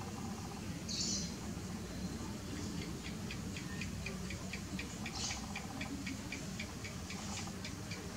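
Background animal chirping: one short high chirp about a second in, then a rapid run of short, evenly spaced chirps, about three a second, over a steady low hum.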